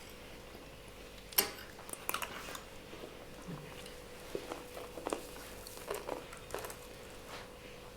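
Cutlery clinking against plates as people eat: one sharp clink about a second and a half in, then softer scattered clicks.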